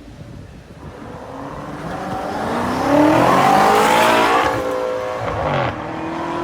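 BMW X6M's twin-turbo V8 through a Fi valvetronic exhaust, climbing in revs over about two seconds to a loud peak, then dropping back and settling to a steadier note near the end.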